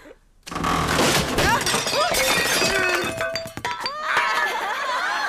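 Cartoon crash sound effect: after a moment's hush, a heavy collapse with a burst of clattering and crockery breaking about half a second in, the clatter running on for a couple of seconds. Voices exclaim near the end.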